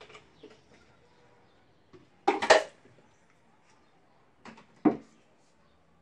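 Plastic blender jar and utensil knocking against a metal baking pan while the batter is emptied out: a short clatter about two and a half seconds in and a single sharp knock near five seconds.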